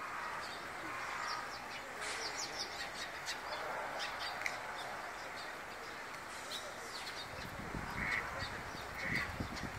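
Eurasian tree sparrows chirping, many short high chirps scattered throughout, over a steady outdoor background hiss. Two short, lower calls come near the end.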